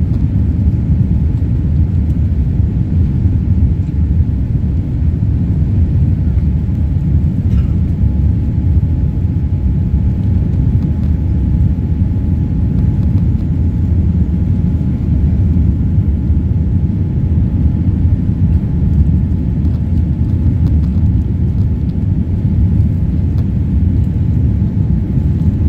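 Steady low rumble of a jet airliner's engines and rushing air heard inside the cabin during the climb after takeoff, with a faint steady whine above it.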